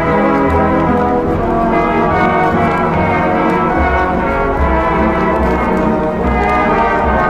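Orchestral music led by brass, playing loud sustained chords that change every second or two.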